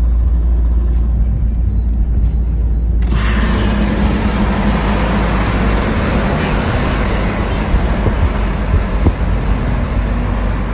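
Road traffic rumble: vehicle engines and tyre noise with a heavy low drone, growing suddenly fuller and louder about three seconds in.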